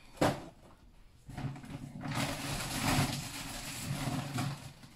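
A cardboard cracker box set down on a countertop with a light knock. About a second later comes a stretch of plastic-bag rustling and handling noise as groceries are pulled out of a bag.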